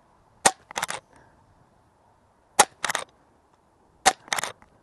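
Umarex Zelos .22 regulated pre-charged pneumatic air rifle firing three shots about one and a half to two seconds apart. Each sharp crack is followed about a third of a second later by a shorter, duller second report.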